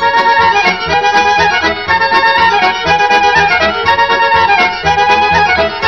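Instrumental break of a Serbian folk song: an accordion plays a quick, ornamented melody over a steady bass beat, with no singing.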